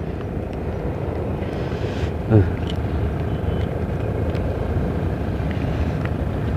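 Steady low rumble of outdoor background noise, with a short falling tone about two seconds in.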